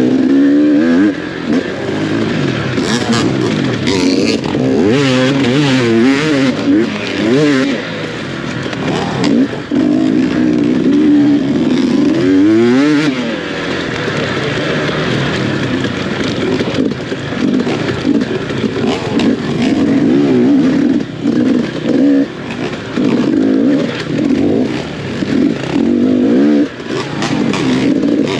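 Off-road dirt bike engine ridden hard, revving up and down continuously, its pitch rising and falling over and over with throttle and gear changes.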